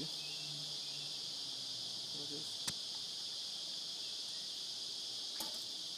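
Steady, high-pitched chorus of insects chirring, with a sharp click about two and a half seconds in and a fainter one near the end.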